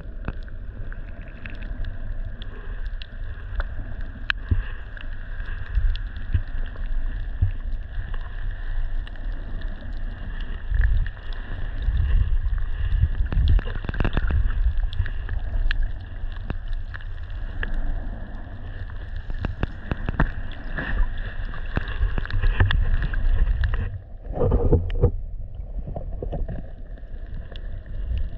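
Muffled underwater sound of shallow surf heard through a submerged camera: a low rumble of moving water with scattered small clicks and knocks. About three-quarters of the way through, the sound briefly changes in character.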